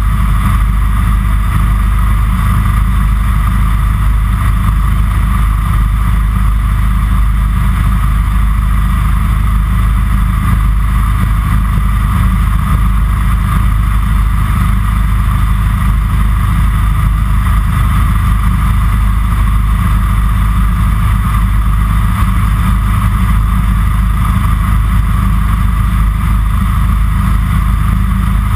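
Kitfox Series 5 light aircraft's engine and propeller running steadily in flight, heard from inside the cockpit: a loud, constant drone with a deep rumble and a higher hum over it.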